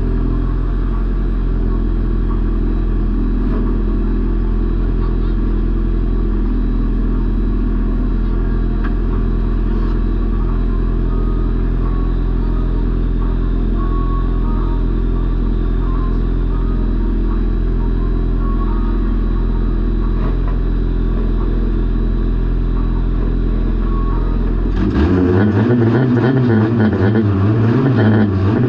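Junior banger-racing car's engine idling steadily, heard from inside the stripped cockpit. Near the end it revs up, louder and rising and falling in pitch, as the car pulls away.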